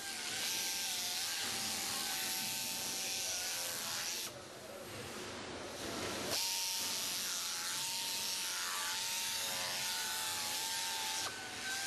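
Jarvis JC3A air-powered dehider running, its air motor giving a steady whine with a hiss, the pitch wavering as the circular blades work. The whine drops out for about two seconds near the middle, leaving the hiss, then picks up again.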